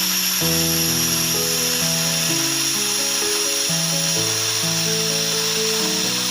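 Compressed air hissing steadily out of the air compressor's tank as its pressure is bled down toward zero, under background music with changing notes.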